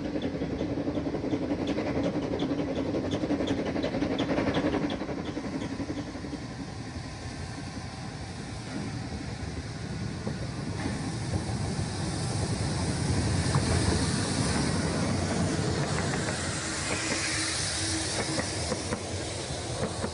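Narrow-gauge steam locomotive hauling a passenger train, with a regular beat of about three a second in the first few seconds. It grows louder as it comes close, with a hiss of steam, and the coaches rumble and clatter past near the end.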